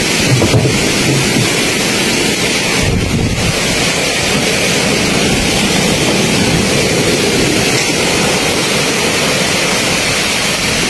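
Strong wind rushing steadily over the microphone, mixed with the wash of waves around moored boats, as in a typhoon storm.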